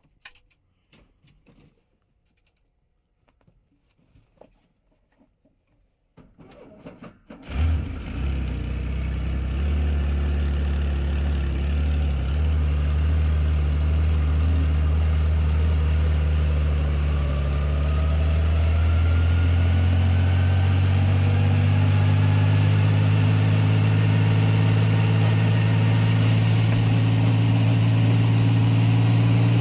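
Helicopter starting up, heard from inside the cabin: a few faint clicks, then about seven seconds in the engine starts and runs with a steady low drone. A whine slowly rises in pitch and the drone steps up as it spools up.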